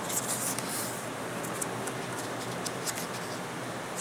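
Paper pages of a Blu-ray digibook booklet rustling and brushing as they are handled and turned: a flurry of rustling in the first second, then light scattered ticks and scrapes, with another burst of rustling at the very end as a page turns. A steady background hum runs underneath.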